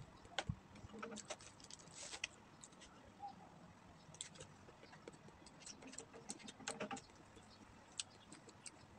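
Faint, irregular crackling and clicking of crispy fried chicken being pulled apart by hand and chewed.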